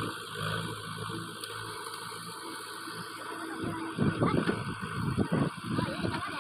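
JCB 3DX backhoe loader's diesel engine running steadily as its backhoe arm works a load of uprooted brush. About four seconds in, a louder, irregular crackling and scraping of branches being shoved into the trolley sets in over the engine.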